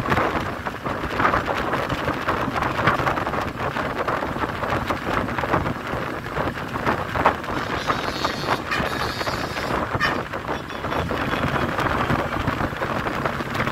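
Bus travelling at highway speed, heard from a window seat: a loud, steady rush of wind and road noise with frequent small rattles and knocks.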